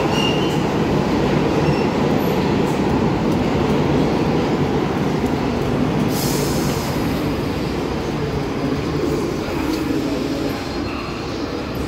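R62 subway train on the (3) line pulling out of the station, its wheels rumbling and clattering on the rails as it moves away into the tunnel. The rumble eases slowly, with a brief high-pitched burst about six seconds in.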